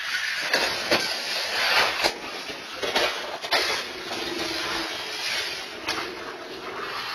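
A car passing along the street through a security camera's microphone: a steady hiss of passing traffic, broken by several sharp knocks.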